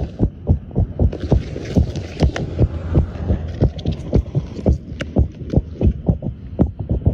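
Rapid low thumping, about four beats a second, with a hum beneath it, coming from under the ground and felt as if it were only about a foot down.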